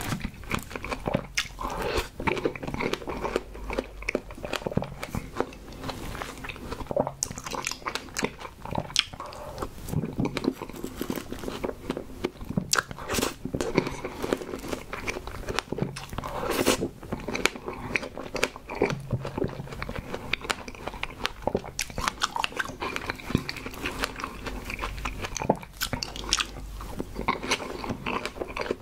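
Close-miked chewing of fresh strawberries with whipped cream: wet, squelching mouth sounds with many small sharp clicks, going on without a break.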